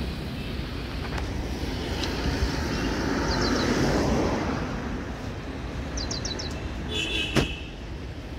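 Roadside traffic noise, with a vehicle passing and swelling a few seconds in. Near the end there is a single sharp knock.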